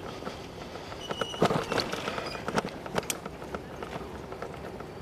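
Bicycle rattling as it rides: a quick uneven run of small clicks and knocks from its loose bell and fittings, with a few louder knocks between one and two seconds in.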